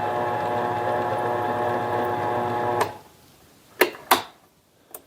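Mini lathe running steadily with an even whine while power tapping a number 8-32 thread, stopping abruptly about three seconds in. Two sharp clicks follow about a second later.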